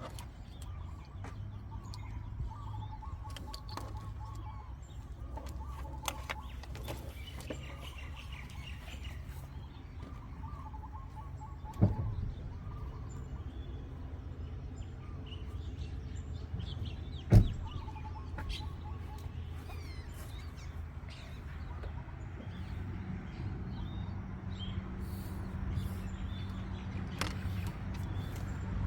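Birds chirping over a steady low hum, with two sharp knocks a few seconds apart, the second the loudest.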